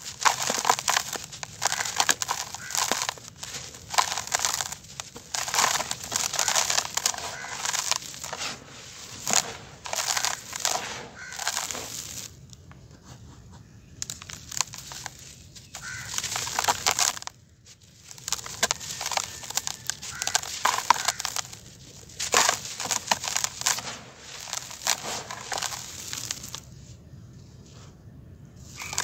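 Dry sand-cement clumps crushed and crumbled by hand, a gritty crunching with grains pattering into a plastic basin. It stops for a few short pauses and goes quieter near the end.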